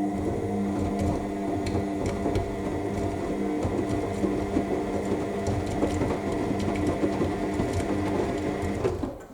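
AEG 7000 Series washing machine turning its drum during the main wash: a steady motor hum with several held tones over the tumbling and sloshing of wet laundry, which stops about nine seconds in as the drum pauses.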